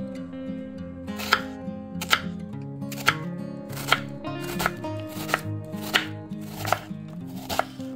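Kitchen knife dicing a peeled onion on a wooden cutting board: a steady series of about nine crisp cuts, each ending in a knock of the blade on the board. Soft background music plays underneath.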